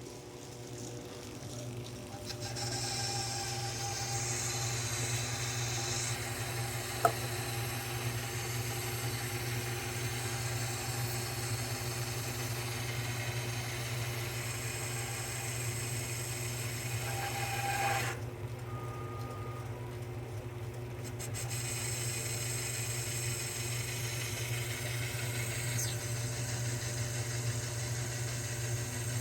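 A 1938 South Bend 9 metal lathe runs steadily while a carbide insert, driven by an electronic leadscrew feed, turns 416 stainless steel bar. The cutting noise starts a couple of seconds in, breaks off for a few seconds about two-thirds of the way through, then resumes.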